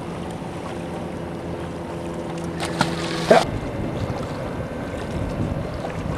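Wind buffeting the microphone and water lapping around a bass boat on open water, with a steady low hum that cuts off about three and a half seconds in, just after a short knock.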